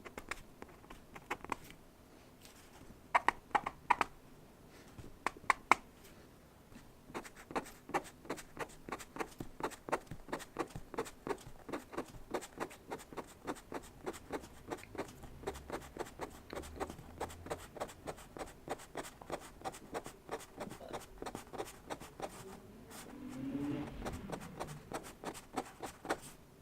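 Pen nib scratching on drawing paper in quick repeated strokes, as when hatching a sketch. There are a few louder taps in the first six seconds, then a steady run of about three strokes a second.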